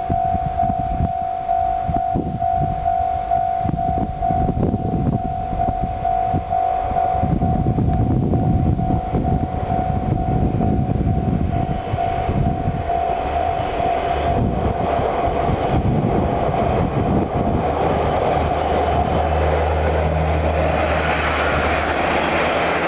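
Japanese railway level-crossing alarm ringing steadily, a repeated electronic bell tone, over an uneven low rumble. Around the middle the bell fades under the growing noise of a JR KiHa 147 diesel railcar coming up, and in the last few seconds the railcar passes close by, its diesel engine running with a steady low drone under the wheel and track noise.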